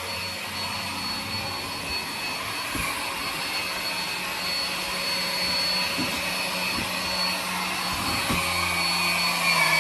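Hoover ONEPWR cordless stick vacuum running steadily, its motor giving a high whine as it sucks up dust and dirt from a tile floor, with a few faint knocks of the head on the floor.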